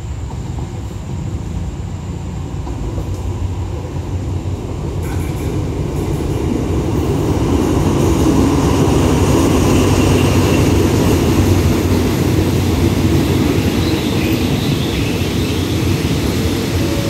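Diesel locomotive of a commuter train pulling slowly into a station, its engine rumble growing louder as it nears and passes, loudest about halfway through, then the coaches rolling by at low speed.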